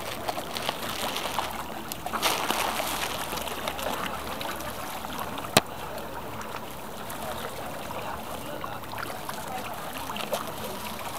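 River water lapping and splashing against a concrete embankment, a steady rushing wash with small scattered splashes. One sharp click about five and a half seconds in.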